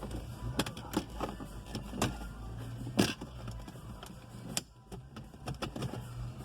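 Plastic interior trim of a Ford S-Max being pried loose by hand: a run of clicks and knocks as its press-fit clips let go, the sharpest about three seconds in.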